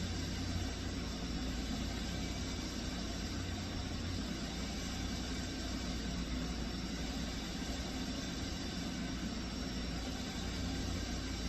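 Steady whir of a small electric fan motor, an even hiss over a low hum.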